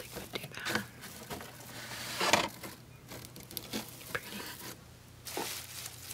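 Scratchy rustling of a tinsel Easter-egg wall decoration being handled in its cardboard display box. It comes as scattered crinkles and small clicks, loudest a little over two seconds in.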